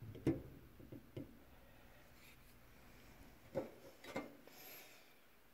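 A few light metal knocks and clicks as a rusty perforated metal grate is set down on the lid of a burning mason-jar oil lamp and a stainless steel camp cup is handled. The sharpest knock comes just after the start, with two more about three and a half to four seconds in.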